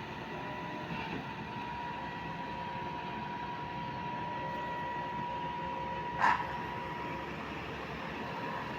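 Construction-site machinery running with a steady drone and a thin, even whine, and a brief louder noise about six seconds in.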